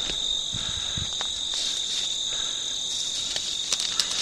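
Steady high-pitched chorus of crickets or similar insects, with a few soft thumps in the first second and two sharp clicks near the end.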